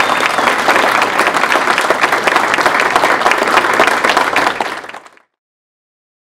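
Audience applauding, a dense clatter of many hands clapping. It fades out about five seconds in, leaving silence.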